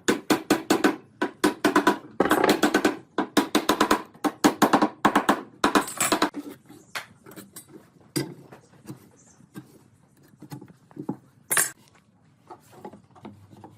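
Rapid runs of sharp knocks, like wood being struck with a hammer or mallet, dense for about six seconds and then thinning to scattered single taps.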